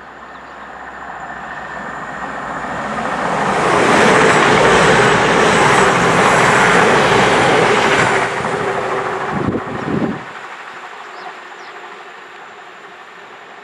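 A train passing through the station at speed without stopping. A rush of wheel and running noise builds over the first few seconds and is loudest for about four seconds. It ends with a few sharp thuds and cuts away suddenly about ten seconds in.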